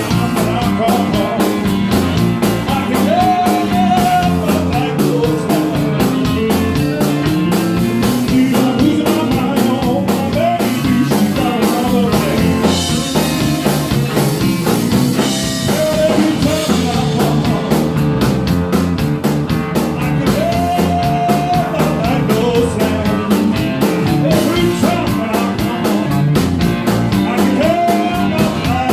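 Live blues-rock band playing, with a steady drum beat under bass and sliding lead lines.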